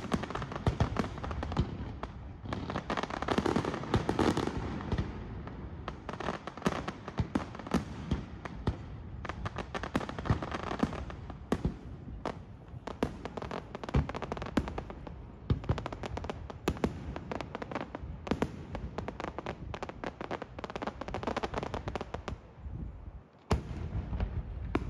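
Daytime aerial fireworks display: colored-smoke and crackle shells bursting overhead, with many sharp reports in quick succession. There is a brief lull near the end, then more bangs.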